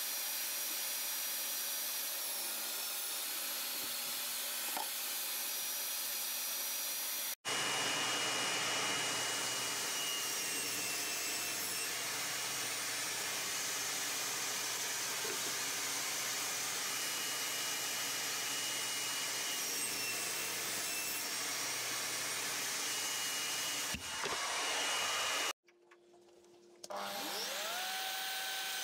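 Benchtop table saw running with a steady motor whine as pine boards are crosscut on a sled, heard in two stretches split by a sudden cut. Near the end, after a brief near-silence, a drill fitted with a Forstner bit spins up, its whine rising and then holding steady.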